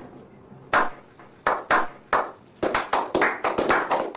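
A small group slow-clapping: single hand claps about a second apart at first, quickening into fast, steady applause from about halfway through.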